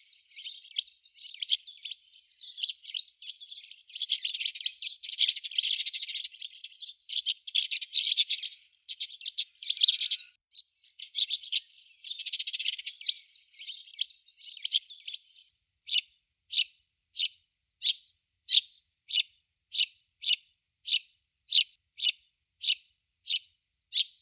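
Eurasian tree sparrows chirping: a dense run of overlapping chirps, changing about 15 seconds in to single short chirps repeated evenly at about two a second.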